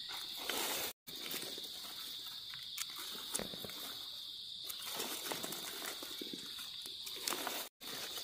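Insects keeping up a steady high-pitched drone, with scattered light rustles and clicks over it; the sound drops out for an instant twice.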